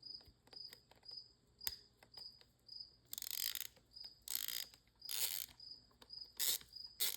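Ratchet head of a Pittsburgh 3/8-inch drive torque wrench, its quick-release gear set swapped in from a Pittsburgh Pro ratchet, clicking in quick runs as it is ratcheted back and forth, starting about three seconds in: the swapped head working.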